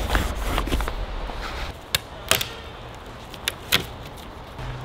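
Branches and dry leaf litter being handled in sped-up footage: dense rustling and ticking at first, then four sharp cracks of sticks in the second half.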